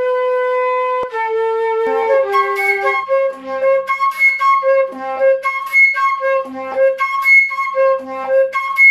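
Jupiter JFL700 concert flute played solo. A note is held for about a second and stepped down twice, then a repeating figure leaps between C in different octaves, from low C up to the high register.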